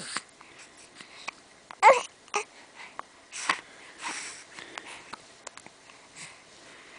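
A baby with the hiccups making short fussy cries and breathy noises. The loudest is a brief squeal with wavering pitch about two seconds in, followed by a few sharp short sounds.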